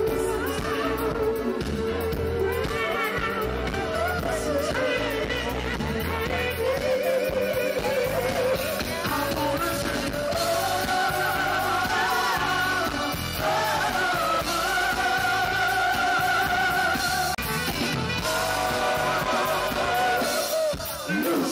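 Live band music with singing. The voices hold long notes with a wavering vibrato through the second half, over a steady bass and drum rhythm.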